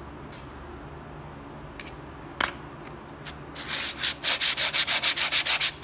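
A Harley-Davidson Sportster rear disc brake pad is rubbed back and forth on a sheet of sandpaper to clean up its friction face. There is a single click about two and a half seconds in, and then a quick run of scraping strokes, about six a second, begins a little past halfway.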